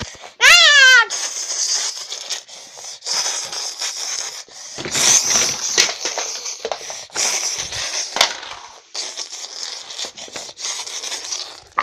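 Rustling and rubbing right against the microphone, with scattered clicks, as the camera is handled with its lens covered. About half a second in there is a short, loud squeal that falls in pitch.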